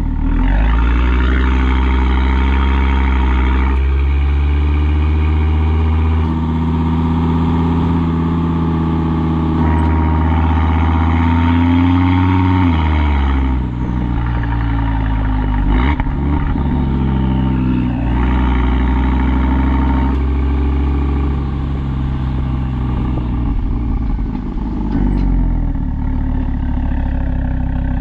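Audi RS3 8V's five-cylinder engine through its RS exhaust, both exhaust valves held open by an SST box, picked up close to the tailpipes. It pulls up through the revs at low speed, drops in pitch about halfway through as the car eases off, then runs at lower revs.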